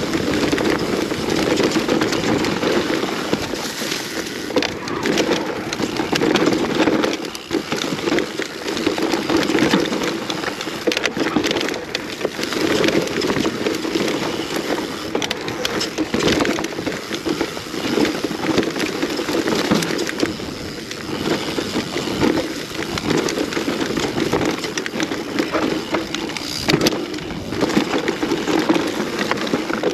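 Mountain bike descending a rough enduro trail over roots and rocks: a steady rushing rattle of tyres on dirt, broken by many sharp knocks and clatters from the bike.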